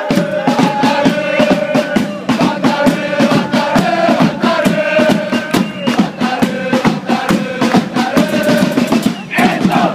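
A crowd of football supporters singing a chant together over a steady, driving drum beat.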